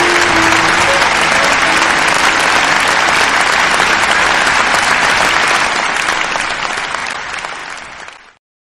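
Crowd applauding, the clapping fading out from about six seconds in and stopping shortly after eight seconds; the last notes of music die away in the first second.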